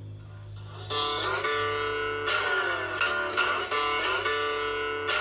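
Background music on guitar: strummed chords, quiet at first, then fuller from about a second in, with a new strum every second or so.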